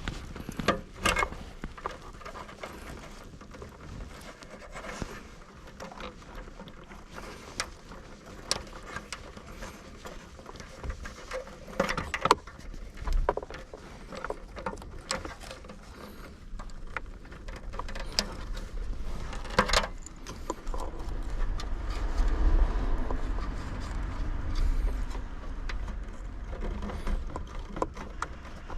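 Irregular clicks, taps and light knocks, as of objects being handled, with a low rumble swelling about three quarters of the way through.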